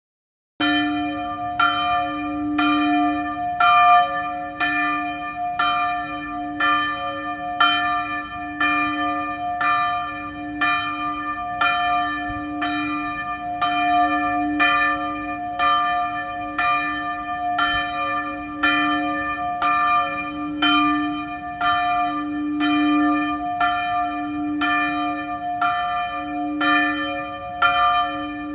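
Church bells ringing a steady toll, about one stroke a second, each stroke ringing on into the next: a call to church. The strokes begin about half a second in.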